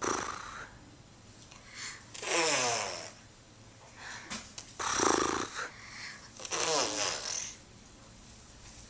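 A toddler making funny breathy vocal noises, about five in a row. Two of them slide down in pitch, and the loudest comes about five seconds in.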